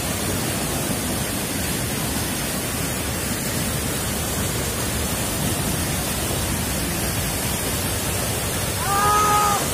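Fast jungle river rapids rushing over boulders, a steady whitewater rush. A voice calls out briefly near the end.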